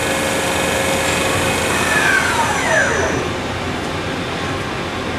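Steady hum of running machinery in a machine shop, with a whine that falls in pitch about two to three seconds in.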